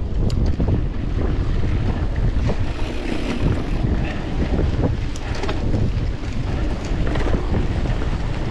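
Wind buffeting the microphone of a bike-mounted action camera while cycling at speed, with scattered clicks and rattles from the bicycle and its tyres on the road.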